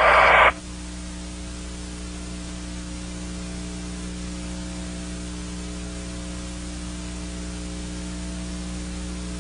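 Steady electrical hum with several fixed tones under a constant hiss: the background noise of a cockpit audio recording between transmissions. It begins just after a radio voice cuts off at the very start.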